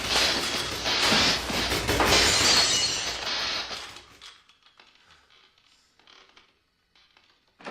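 Glass shattering and breaking in a few loud crashes over the first three seconds, then dying away to faint scattered sounds.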